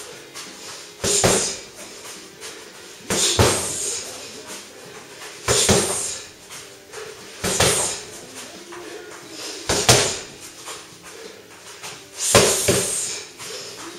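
Strikes landing on a freestanding heavy punching bag: six heavy thuds, about two seconds apart, each with a short tail.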